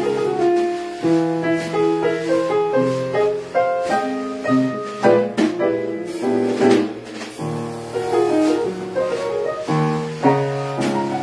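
Acoustic piano playing a jazz solo in quick runs of notes, with a drum kit keeping time underneath.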